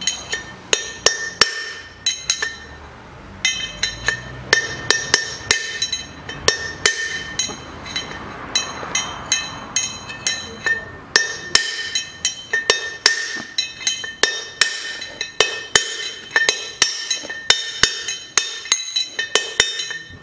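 Hammer striking a steel drift to knock the bearing races out of a Land Rover Defender front wheel hub. Repeated sharp metallic strikes, about two to three a second, each ringing briefly, with a couple of short pauses.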